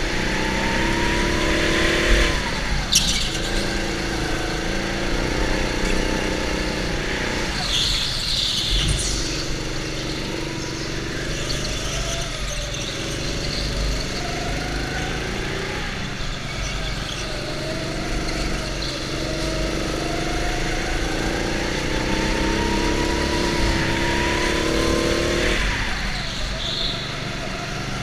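Go-kart engine heard from the driver's helmet, its pitch climbing as the kart accelerates and dropping sharply when the throttle comes off for a corner, about two seconds in and again about twenty-five seconds in. A short sharp click about three seconds in.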